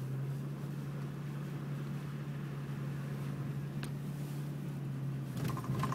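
Inside a Nissan Xterra's cabin while driving: a steady low hum over an even rush of engine, tyre and wind noise, with a single click nearly four seconds in and a short burst of noise near the end.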